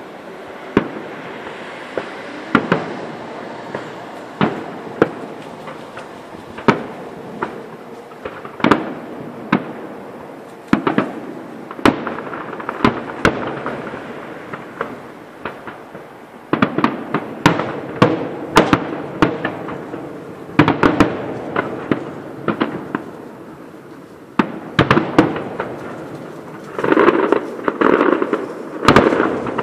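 Aerial fireworks shells bursting in a display: sharp bangs about a second apart at first, coming thicker from about halfway, with a dense run of overlapping bursts near the end.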